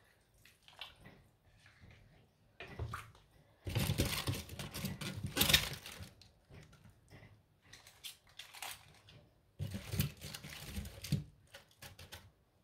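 Cabbage leaves rustling and crunching as they are handled and pushed into a stainless pot of stew, in three noisy spells, the longest and loudest near the middle.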